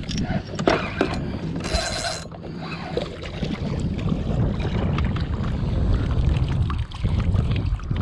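Spinning reel being cranked as a hooked fish is reeled in to the boat, with short mechanical clicks over a steady low wind rumble on the microphone. A brief hissing burst comes about two seconds in.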